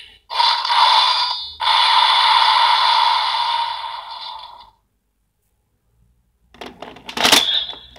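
Electronic slash sound effects from the Kamen Rider Saber DX toy sword and belt playing out the X-Swordman finisher: a short burst, then a long effect that fades out after about three seconds. After a short silence, a quick run of plastic clicks ends in one sharp clack as the sword is handled.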